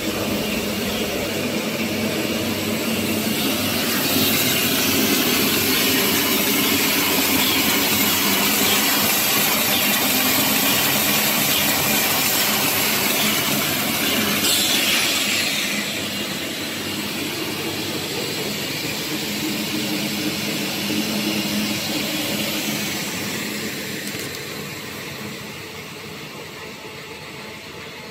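Hot-melt glue BOPP labeling machine and bottle conveyor running: steady machine noise with a strong hiss. It is loudest in the middle, with a brief falling whoosh about halfway, and gets quieter over the last few seconds.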